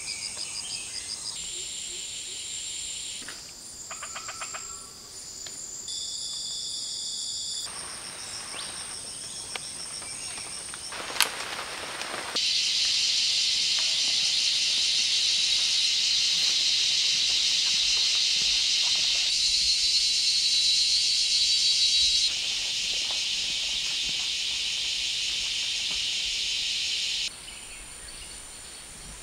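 Forest ambience dominated by a high-pitched insect chorus that switches abruptly several times as shots are cut together, loudest through the middle, with a little bird chirping. A single sharp snap comes about eleven seconds in.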